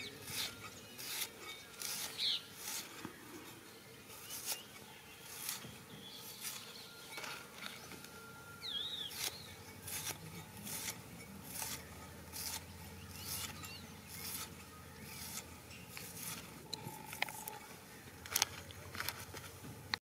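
Red onion being sliced by hand against an upright floor-mounted blade: a steady run of crisp cuts, a little over one a second.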